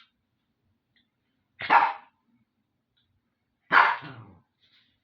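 King Charles spaniel barking twice, two short loud barks about two seconds apart.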